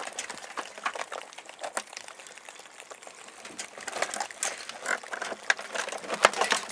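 Live Dungeness crabs moving in a wire crab trap: irregular clicks and scrapes of shells and legs against the wire mesh and against each other, busier in the second half.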